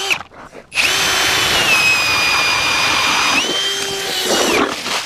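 Power ice auger boring a hole through lake ice. The motor starts about a second in and runs with a steady whine that dips a little in pitch under load, rises again near the end, then stops.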